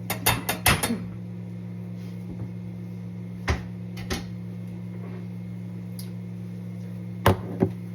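Kitchen utensils knocking and clicking: a quick run of about half a dozen sharp knocks in the first second, then single knocks every second or two, two of them close together near the end, over a steady low hum.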